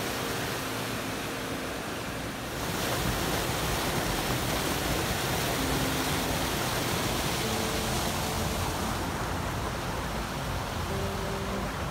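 Snowmelt creek rushing over small rock-ledge waterfalls in spring flood: a steady roar of falling and churning water that grows louder about three seconds in.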